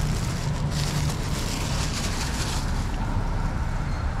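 A motor vehicle engine running steadily with a low hum, over general street noise.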